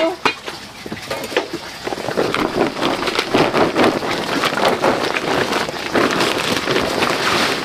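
Woven plastic sack crinkling and rustling as it is folded and gathered up around a pile of shredded plant material: a dense, continuous crackle that thickens after about two seconds.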